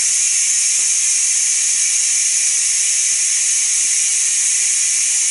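Ninja Foodi pressure cooker venting steam through its pressure-release valve: a loud, steady high hiss. The pressure is being let off after pressure cooking, before the lid can be opened.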